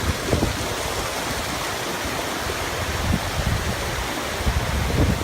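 Waterfall rushing, a steady even hiss of falling water, with a few low buffets of wind on the microphone.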